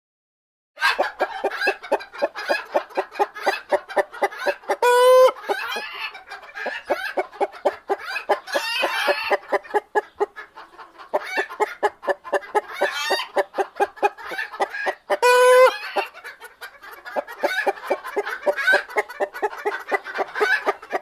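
A flock of chickens clucking in a quick, busy run of short clucks, about four or five a second. Two longer drawn-out calls stand out, about five and fifteen seconds in.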